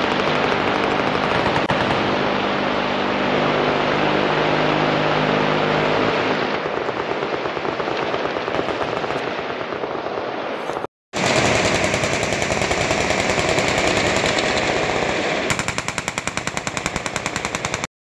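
Machine guns firing continuously in long, unbroken bursts, a dense wall of gunfire. About eleven seconds in it cuts out briefly, then resumes as very fast, evenly spaced automatic fire.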